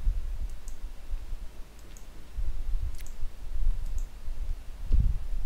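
Computer mouse clicks: several short, sharp clicks spaced roughly a second apart, over a low background rumble.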